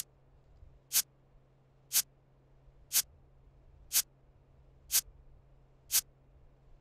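Quiz countdown timer ticking, one sharp tick a second, seven ticks in all, over a faint low hum.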